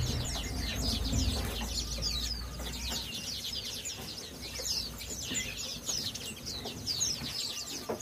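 Many small caged songbirds chirping together: a dense, overlapping run of short, high chirps, many sliding downward.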